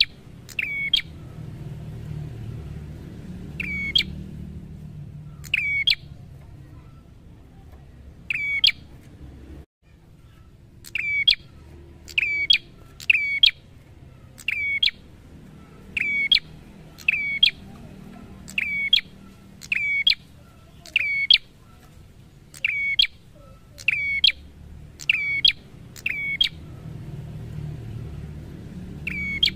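Prenjak songbird calling: loud, sharp single notes, each a quick downward sweep, repeated at uneven intervals, sparse at first and then coming quickly one after another. A low background rumble runs beneath.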